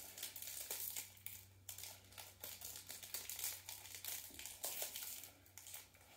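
Faint crinkling and crackling of a hockey card pack's wrapper being worked at by hand to tear it open. The wrapper is stubborn and does not want to open.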